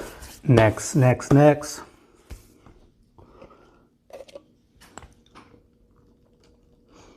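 After a single spoken word, faint scattered clicks and small close-up noises from hands or mouth, near the microphone in a small room.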